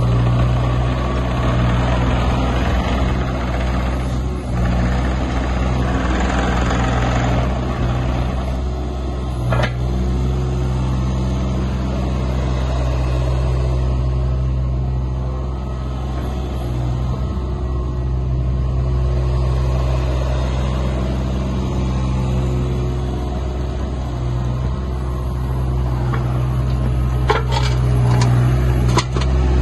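Hitachi ZX26U mini excavator's diesel engine running steadily while the machine slews and works its boom, with a few sharp clicks near the end.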